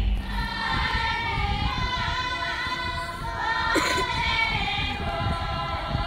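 A group of voices singing together in chorus, with long held notes that glide gently from one pitch to the next.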